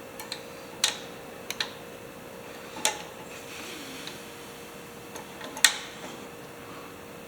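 About eight sharp clicks and clinks at irregular intervals, the loudest about five and a half seconds in: hand tools and small parts being handled while a gasket is fitted during tractor carburetor work. A faint steady hum runs underneath.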